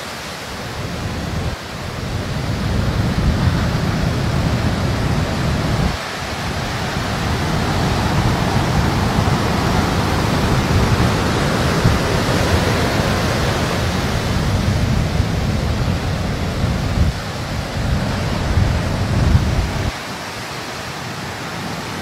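Ocean surf breaking and washing up the beach, a steady rush of white water. Gusts of wind rumble on the microphone through most of it and drop away near the end.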